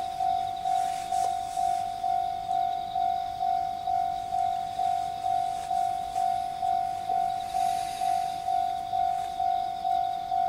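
Japanese railway level-crossing warning bell ringing steadily, about two strikes a second, each strike fading before the next. This is the signal that a train is approaching the crossing.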